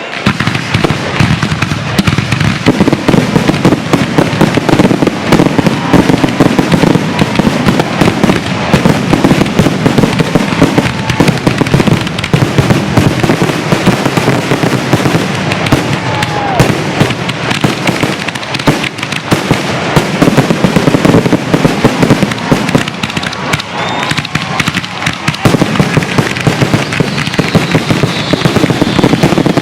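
Fireworks finale: aerial shells bursting in a dense, unbroken barrage of rapid bangs, with no pause between them.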